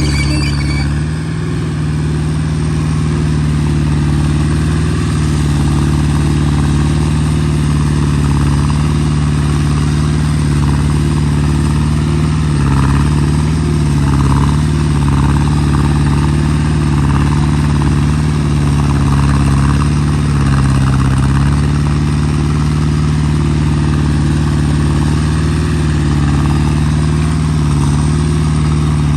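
Hydraulic excavator's diesel engine running steadily at working speed, its pitch dipping briefly a few times.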